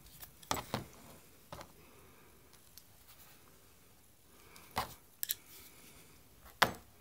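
A screwdriver and small metal parts clicking and knocking as they are handled on a work board: scattered single clicks with quiet between, the loudest near the end.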